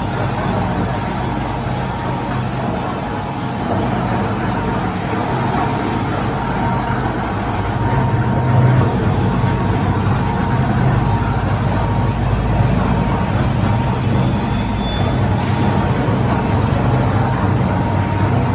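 Double-shaft shredder running under load, its two cutter shafts tearing through leather waste and old clothes: continuous grinding and ripping over a steady low hum and a constant higher whine, getting a little louder about eight seconds in.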